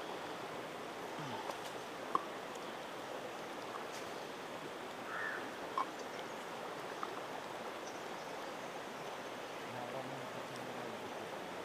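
Steady rushing of a small forest stream, with a few faint clinks as a steel pot and drinking glasses are handled.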